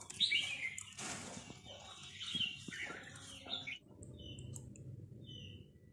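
A puppy and a cat play-fighting: scuffling with several short, high-pitched squeaks through the first few seconds. It then goes quiet apart from a few faint chirps.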